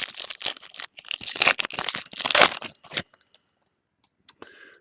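Trading-card pack wrapper crinkling and tearing as it is ripped open, for about three seconds, then quiet.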